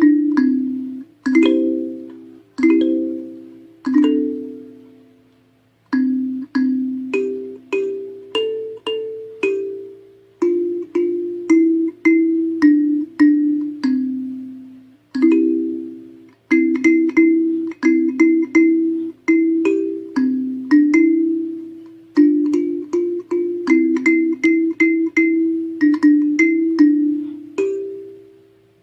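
Coconut-shell kalimba being played: its metal tines are plucked in a slow melody, often two or three notes at once, each note ringing out and fading. There is a short pause about five seconds in.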